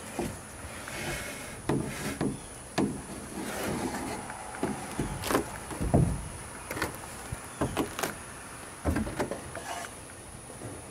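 Template of thin plywood strips being handled and lifted out of a boat's transom: irregular wooden knocks, scrapes and rubs, with the loudest thump about six seconds in.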